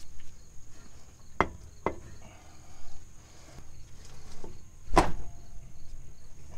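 Metal knocks of a Honda Ridgeline CV axle being worked into the transmission while its splines are lined up: two light knocks about a second and a half in, then a louder clunk about five seconds in.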